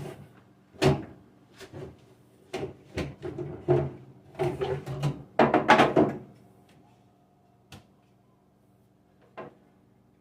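Refrigerator storage bins and parts being handled while they are dried: a run of knocks, clatters and rubbing, busiest in the first six seconds, then two single taps near the end.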